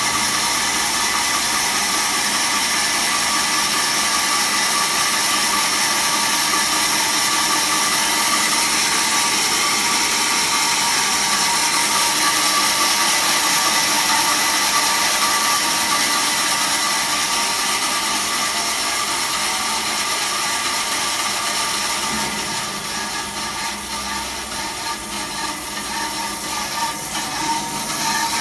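Automatic band saw running and cutting, a steady loud hiss with a high whine. About three-quarters of the way through it drops a little and a rapid irregular clicking comes in.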